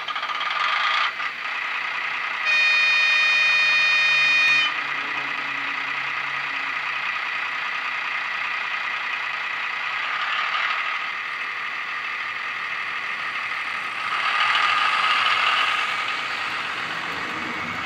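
Sound module of a Mehano Vossloh G1206 model diesel locomotive playing diesel engine sound through its small speaker. A horn sounds for about two seconds a few seconds in. The engine sound swells near the end as the model runs past close by.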